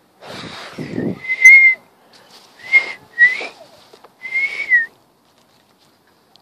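A person whistling four short notes with audible breath, each about half a second and slightly wavering in pitch, after a brief breathy rustle at the start.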